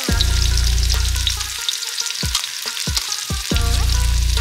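Sliced red onions sizzling as they fry in hot oil in a wok, a steady crackling hiss.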